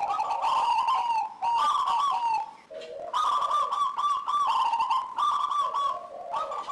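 Local zebra dove (perkutut) cooing its song: phrases of quick, repeated coo notes, each lasting a second or so, with short pauses between them.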